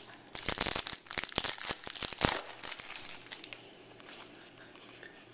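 Wrapper of a trading card pack crinkled and torn open, with a burst of crackling for about two seconds followed by fainter rustling.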